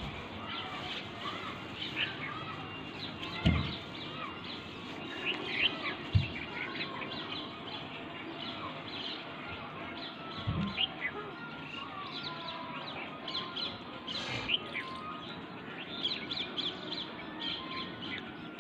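Small birds chirping and calling throughout. Three low thumps stand out, the loudest about three and a half seconds in.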